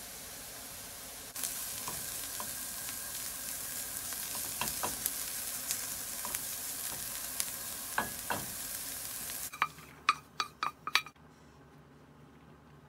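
Diced onions sizzling in oil in a frying pan, louder from about a second in, with a wooden spatula scraping and stirring them. Near the end, a quick run of sharp clinks as the wooden spatula knocks against a stainless steel tray.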